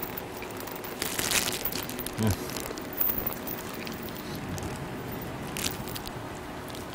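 Faint, sparse clicks and crackles of a Jindo dog taking a piece of boiled pork from a hand and mouthing it, with a brief low voice-like sound about two seconds in.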